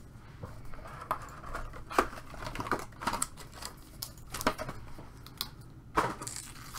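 Cardboard trading-card box being handled and a foil card pack laid on the table: a scatter of light taps and clicks, sharpest about two seconds in and again near the end.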